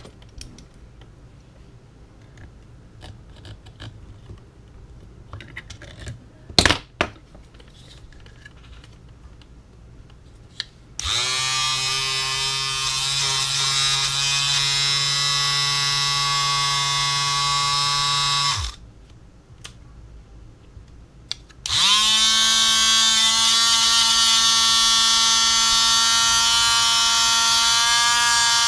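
A small electric motor whining as it runs steadily for about seven seconds and stops, then starts again and runs at a higher speed for about eight seconds. A few clicks and knocks come before it.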